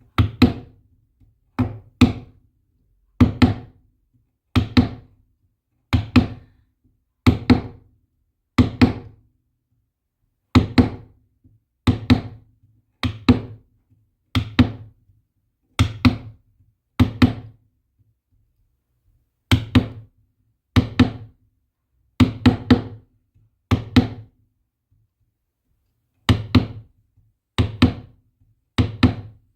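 A steady run of hard knocks, each a quick double strike, coming about once every second and a half, with two short pauses along the way.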